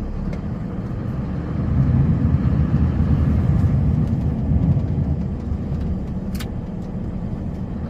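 Snowplow's engine running steadily while it pushes snow aside, working harder and louder for a few seconds in the middle. One brief click comes about six seconds in.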